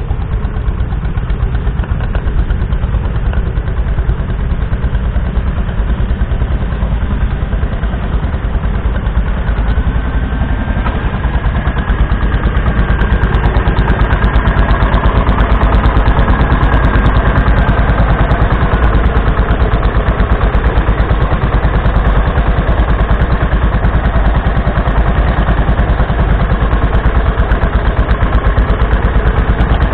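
Small petrol engine of a 1969 Martin Markham Colt 7 hp tractor running steadily under load while pulling a plough, with a rapid even firing beat. It gets louder about twelve seconds in.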